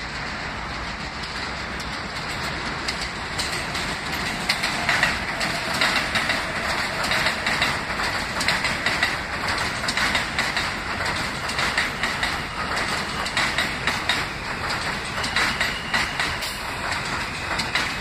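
An R160 subway train rolling along elevated track, its wheels clattering rhythmically over the rail joints. The sound grows louder about four seconds in as the cars come alongside, and a faint high whine creeps in near the end.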